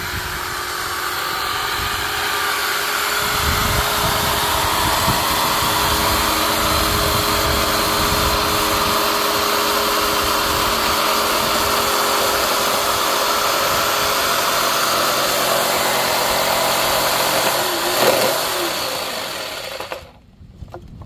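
Cicadas singing: a loud, steady, high buzzing chorus that swells over the first few seconds, holds level, and stops abruptly near the end.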